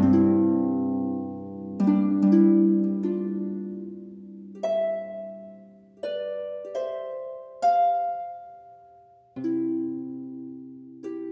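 Slow, calm background music of plucked-sounding notes and chords. Each one starts sharply and rings out to fade, with a new one every second or so and fuller low chords near the start and again near the end.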